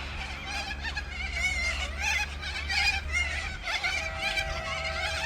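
A large flock of corellas screeching, many overlapping calls at once, over a steady low rumble. About four seconds in, a steady tone comes in beneath the calls.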